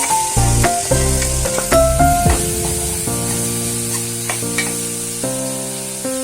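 Instrumental background music with a bass line and notes changing about every half second, over the steady hiss of food frying in a pan.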